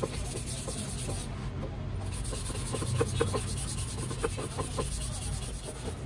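Hands rubbing and sliding along a long clear plastic strip on a wooden board, with scattered light clicks and taps as it is handled, over a steady low rumble.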